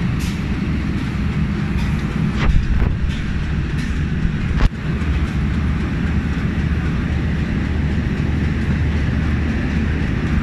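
Steady low drone of a passenger train's diesel engine running at the platform. Sharp knocks come about two and a half seconds in and again, louder, just before the midpoint.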